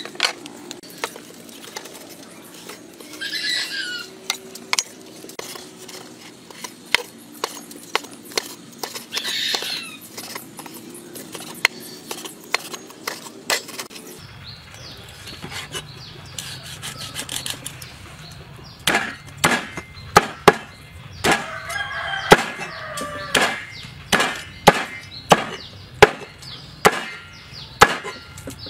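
A knife chopping roast pork on a wooden cutting board: from about two-thirds of the way in, sharp knocks come about twice a second. Before that there are quieter clicks and handling of the meat, and a chicken calls twice in the background.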